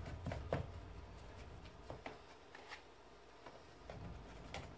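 Faint, scattered light clicks and scrapes of a paintbrush dabbing whitening solution into the nasal bones of a deer skull.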